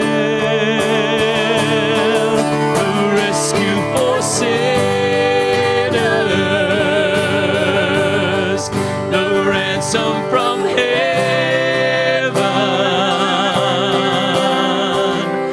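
Live worship band playing a slow song: acoustic guitars under a singer holding long vibrato notes.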